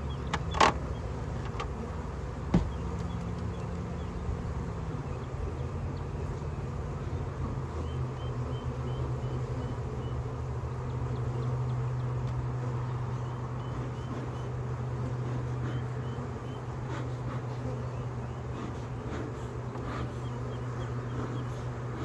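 A mass of honeybees from a freshly installed package buzzing in a steady hum around the open hive. Two sharp knocks sound in the first three seconds.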